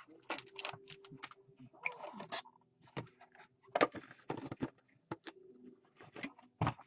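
Cardboard trading-card box handled and opened by gloved hands: scattered clicks, taps and scrapes of the box and lid, with a few louder knocks.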